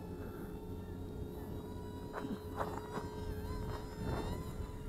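Two small brushed 0720 motors and propellers of a WLToys XK A150 RC Boeing 747 foam model whining in flight. The pitch wavers up and down in the second half. Wind rumbles on the microphone underneath.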